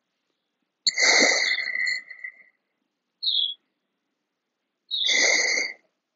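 A bird calling: a call about a second in, a short high chirp at about three seconds, and another call like the first near the end.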